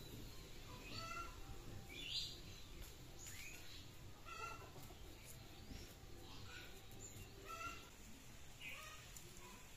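A chicken clucking, faint and repeated about once a second.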